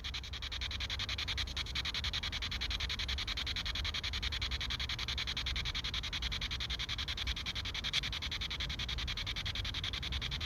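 P-SB7 Spirit Box scanning the FM radio band, its speaker giving a steady hiss of static chopped into rapid, even steps as it jumps from station to station.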